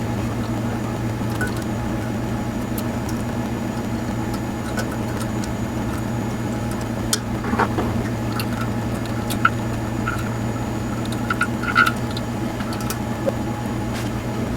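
Steady low hum with scattered light clicks and small metallic taps, more of them in the second half, as small metal parts are handled.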